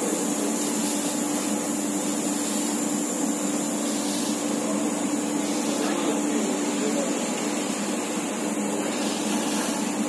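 Steady industrial drone of factory machinery around a big bag filling station: an even hiss of air with a constant low hum, no separate clanks or knocks.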